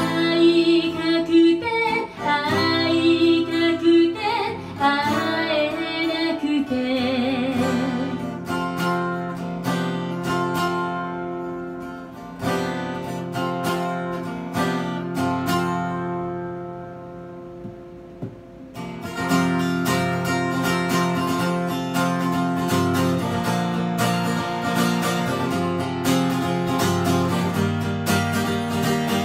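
A woman singing a slow, drawn-out phrase with vibrato over acoustic guitar. The guitar then plays on alone, dies down to a brief lull midway, and comes back with steady strumming.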